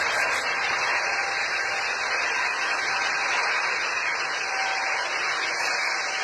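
Steady jet roar from an Embraer E2 airliner's Pratt & Whitney geared turbofans at high power as it rolls down the runway.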